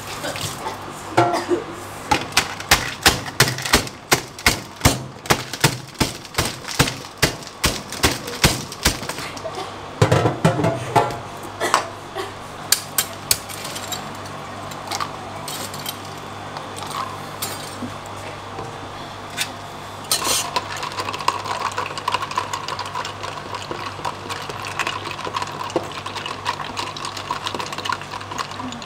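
Ice and utensils at work in plastic drink containers. First comes a fast run of sharp knocks, about three a second, from ice and lemon in a plastic shaker, then a brief rush of ice being scooped. After that there are scattered clinks, and near the end a steady hum with light rattling while a metal bar spoon stirs in a plastic jug.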